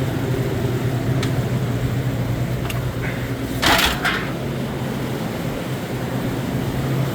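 Refrigeration condensing units running: compressors and condenser fan motors giving a steady hum. A short burst of noise cuts in about three and a half seconds in, with a couple of faint clicks before it.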